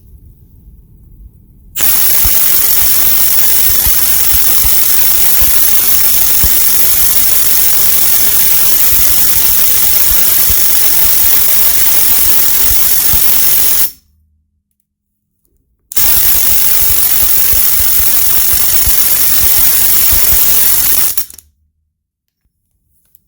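Milwaukee M18 2962 mid-torque cordless impact wrench hammering continuously on a bolt-tension gauge, at speed 3. It runs for about twelve seconds, stops for about two, then hammers again for about five seconds and cuts off.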